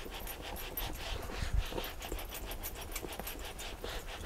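Damp cloth wiping a fibreglass boat seat in quick back-and-forth strokes, a rhythmic rubbing, with a dull thump about a second and a half in.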